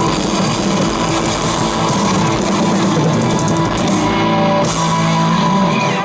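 Live rock band playing loud, with electric guitars and a drum kit. The music stops abruptly right at the end.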